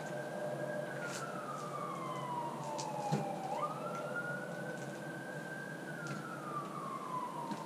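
A siren wailing: its pitch jumps up quickly, holds, then sinks slowly, in two cycles about five seconds apart.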